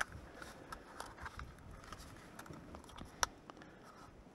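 Camera gear being handled in a padded camera bag: soft rustling and scattered light clicks, with one sharper click about three seconds in.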